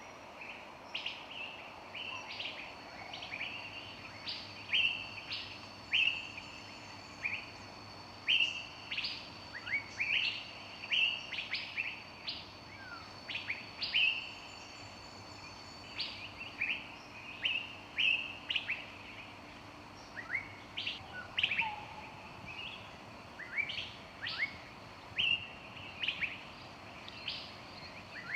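Several birds chirping and singing in a forest: a continuous run of short, high chirps and quick rising and falling notes, with a steady, faint background hum beneath.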